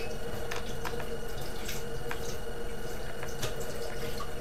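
Scattered light clicks of small pieces being handled on a wooden tabletop, a few irregular ticks over a steady low hum.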